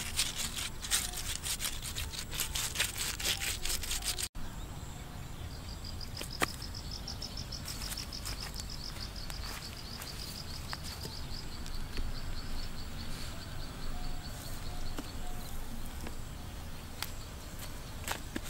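Outdoor rural ambience with a high, rapidly pulsed trill running for several seconds in the middle, and a few scattered sharp clicks. Dense close clicking and rustling fills the first four seconds, then stops suddenly.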